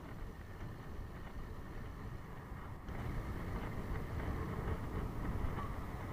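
Wind buffeting the microphone of a handlebar-mounted camera on a moving road bike: a steady low rumble of wind and road noise, a little louder from about three seconds in.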